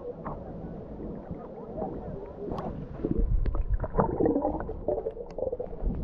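Beach ambience: distant voices of people on the beach and in the water, with water sloshing and a louder low rumble from about three seconds in.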